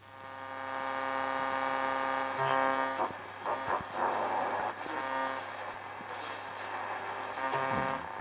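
Tesla Symfonic 603-A valve radio's loudspeaker being switched on and tuned. The sound swells up over the first second or so into a steady pitched tone over a low mains hum, then breaks into shifting tones and bursts of static as the knobs are turned.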